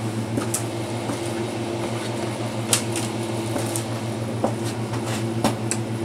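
Steady low machine hum in a small room, with a few short clicks.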